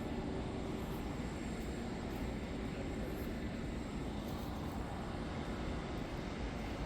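Steady low rumbling outdoor background noise of the kind distant traffic or engines make, with a faint hum that fades out about three seconds in.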